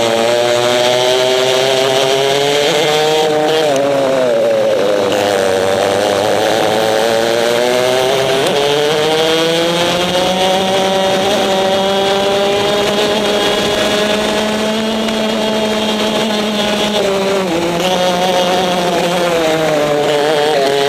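Two-stroke racing kart engine heard onboard at racing speed, its revs rising and falling through the corners. The note drops sharply about four seconds in and again near the end, and holds high and steady through the long middle stretch.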